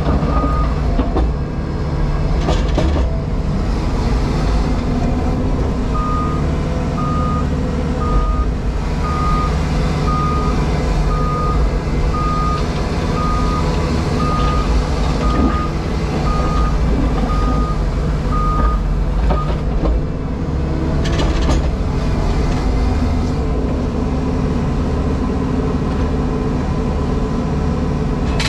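JCB Pothole Pro's diesel engine running steadily, heard from inside the cab. A reversing alarm beeps about once a second, stopping about a second in and sounding again from about six seconds to about nineteen seconds.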